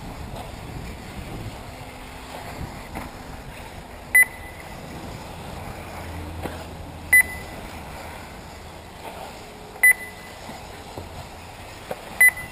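Four short electronic beeps a few seconds apart, the kind an RC race lap-timing system gives as cars cross the timing line, over a steady background hiss.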